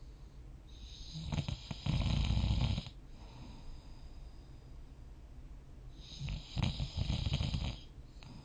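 A person snoring in deep sleep: two long snores about five seconds apart, each swelling to a loud low rumble with a breathy hiss, with quiet breathing between them.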